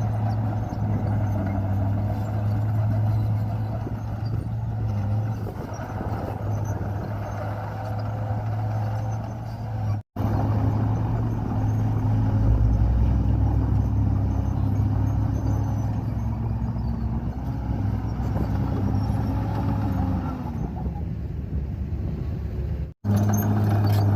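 Komatsu bulldozer's diesel engine running steadily under load, its pitch wavering slightly as it pushes soil, cutting out abruptly twice for a moment.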